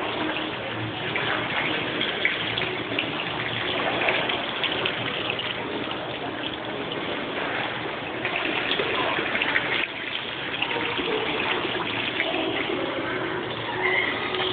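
Water from a tiled wall fountain splashing steadily into its basin.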